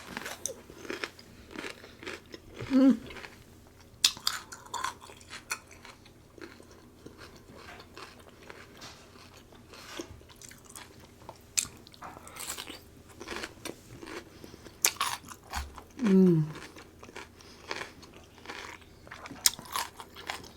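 Close-miked mouth sounds of a person eating seafood boil: wet chewing, smacking and clicking. Two brief falling vocal hums come about 3 seconds in and again about 16 seconds in.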